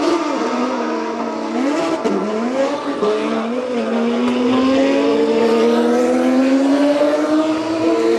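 Open-wheel racing car's engine, dropping in pitch over the first few seconds as it brakes and shifts down, then rising steadily as it accelerates away.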